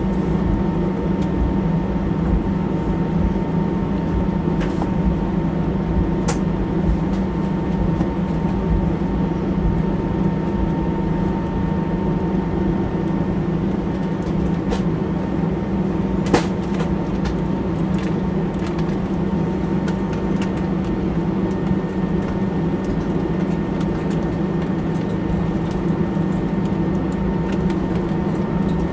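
Steady cabin noise inside an Airbus airliner as it taxis, with its jet engines running: a low hum with a faint steady high tone over it. A few light clicks, the sharpest about sixteen seconds in.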